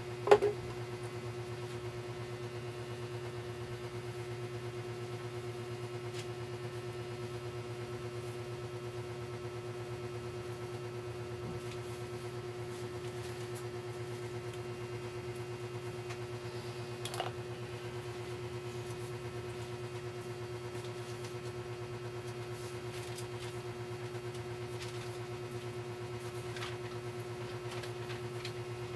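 Steady electric hum running the whole time, with one sharp click about half a second in and a softer click about 17 seconds in.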